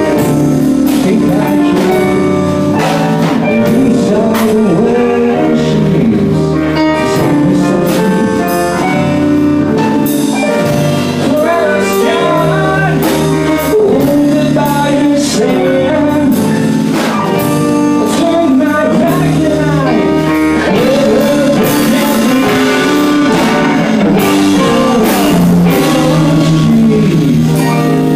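Live indie rock band playing: electric guitars, keyboard and drums, with a melody line that bends and slides in pitch.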